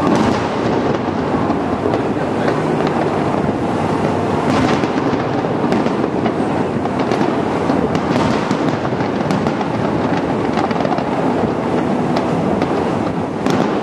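Fireworks display: aerial shells bursting in a dense, continuous barrage with many short sharp pops. Louder bangs come about four and a half seconds in, around eight seconds, and near the end.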